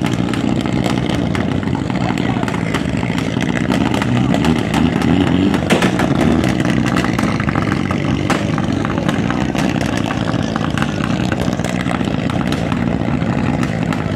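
Vehicle engines running steadily, with a dense crackle of small clicks throughout.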